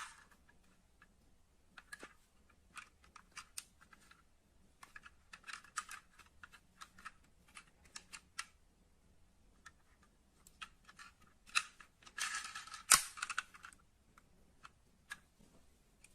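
Small clicks, taps and light rattles of die-cast metal model cars being handled. About three quarters of the way through comes a short scraping rustle with one sharp, louder click in it.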